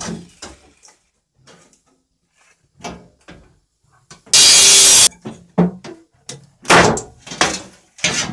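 A run of knocks and clanks from a metal piece being worked loose, with a loud rush of noise lasting under a second about four seconds in and three heavier bangs near the end.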